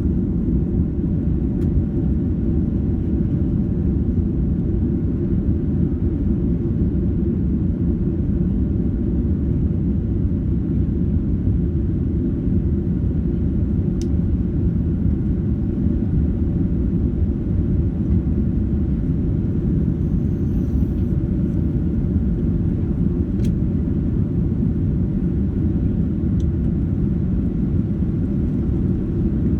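Steady rumble of a Boeing 767-300ER's Rolls-Royce RB211 jet engines and airflow, heard from inside the passenger cabin, with a few faint clicks.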